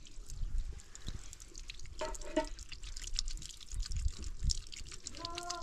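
A thin stream of water running from an outdoor brass tap and splashing over a child's hands and onto the concrete below, with many small drips and splashes. A short voice sound comes about two seconds in, and a voice starts near the end.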